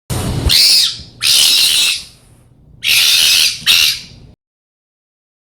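Homemade dinosaur sound effect: four harsh, hissing screeches in quick succession, the last two close together, with a low rumble under the first.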